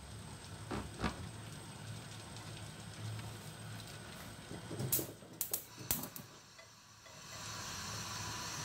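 Gas stove burner being lit: several sharp clicks from the knob and igniter about five to six seconds in, then the gas catches and the flame burns with a steady hiss near the end. A couple of light knocks about a second in.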